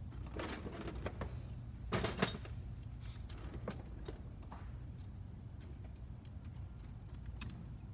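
Small clicks and handling noises from hand tools and parts being worked on a rubber bench mat, with a loud cluster of clicks about two seconds in, over a steady low hum.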